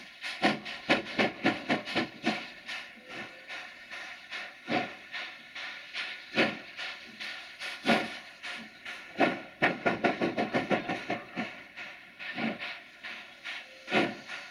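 JS class 2-8-2 steam locomotive starting a heavy load, its chimney exhaust beats uneven over a steady hiss of steam: some slow heavy single chuffs, and quick flurries of beats near the start and again about ten seconds in, typical of the driving wheels slipping as the driver fights for grip.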